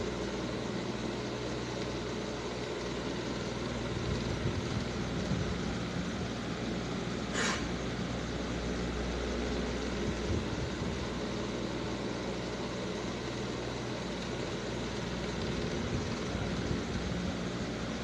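Steady low mechanical hum, with a short hiss about seven and a half seconds in.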